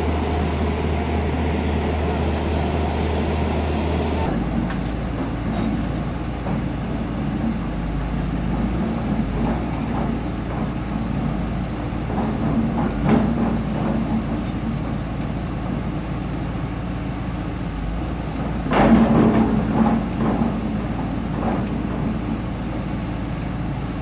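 Diesel engines of an excavator and a piling rig running under load while they pull a steel pile casing out of the ground. The engine hum shifts about four seconds in, there are a few scattered metal knocks, and a louder surge comes about 19 seconds in.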